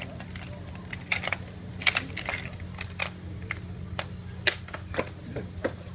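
Irregular sharp clicks and taps of drawing tools being picked up, set down and knocked against the drawing board as several hands color on paper. The loudest click comes near the middle, over a steady low hum.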